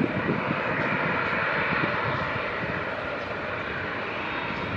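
The twin CFM56-7B turbofans of a Boeing 737-800 running at taxi power as the airliner rolls past: a steady jet whine and hiss with a low rumble underneath.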